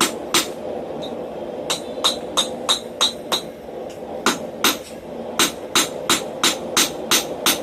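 Blacksmith's hammer striking hot steel on an anvil while forging a flat bracket. The blows come about three a second in quick runs, with a short pause near the middle, over a steady hum.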